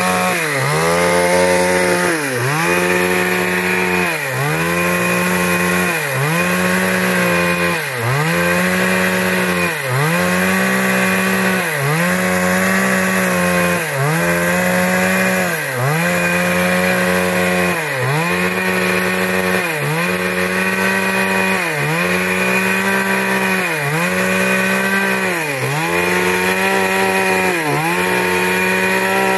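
Two-stroke chainsaw running at high speed while cutting wood. The engine pitch sags briefly and recovers about every two seconds as the chain bites into the log.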